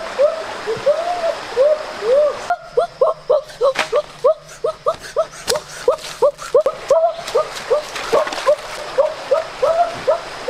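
An animal's short, arching calls, repeated a few times a second, over the splash and trickle of a shallow stream, with a few sharp clicks.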